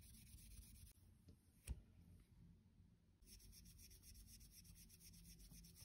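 Faint, quick back-and-forth rubbing of silver-polish wadding on a silver-plated spoon, buffing off tarnish. It pauses about a second in, with one light tap in the pause, and resumes about three seconds in.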